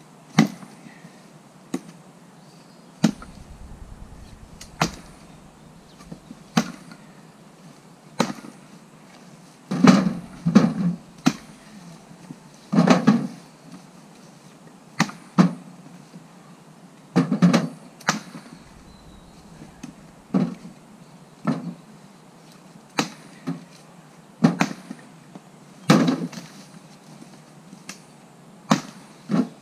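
A splitting axe striking log rounds again and again, a sharp chop every second or two, some in quick pairs, as firewood is split.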